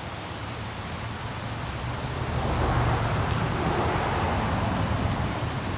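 A steady rushing wash of noise like city traffic ambience, swelling over the first couple of seconds and then holding, with a low hum underneath.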